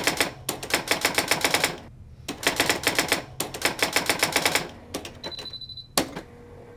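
Typewriter keys clacking in quick runs with short pauses between them. This is followed by a brief high ding about five seconds in and a single sharp clack a moment later.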